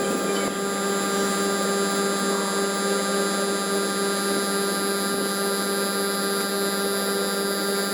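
Refrigerator compressor running with a steady electric hum.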